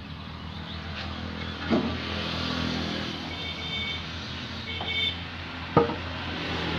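A machine running with a steady hum, with a few sharp knocks, about two seconds and six seconds in.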